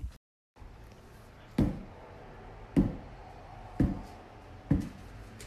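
Four dull thumps, about a second apart, over a faint steady hum.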